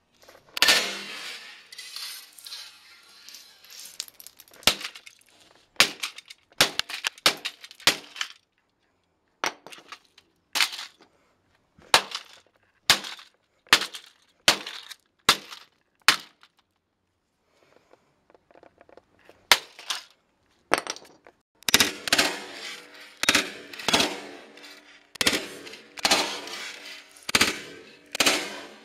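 A computer keyboard being smashed on concrete paving slabs: a long run of sharp, cracking blows at irregular spacing, with a pause past the middle. Near the end the blows come faster and each leaves a brief ringing.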